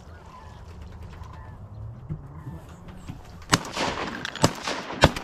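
Three shotgun shots fired in quick succession about a second apart, starting about three and a half seconds in, each ringing out over the water. Before them, a few faint duck calls.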